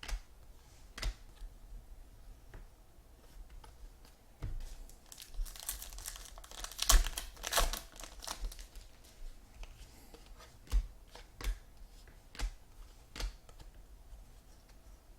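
Trading-card pack wrapper being torn open and crinkled. This is loudest about seven seconds in, among scattered light taps and clicks.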